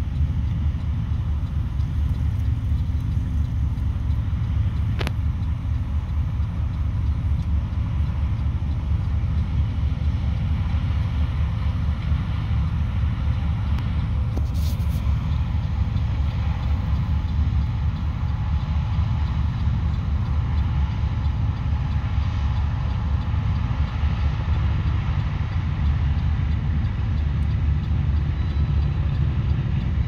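Steady low rumble of two John Deere S780 combines running their diesel engines and threshing machinery while harvesting corn, a little fuller in the second half as they come closer.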